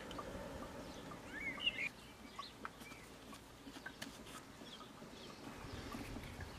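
Faint bird chirps about a second and a half in, over a quiet background, with a few small clicks of plastic bolt caps being pushed onto their bolts.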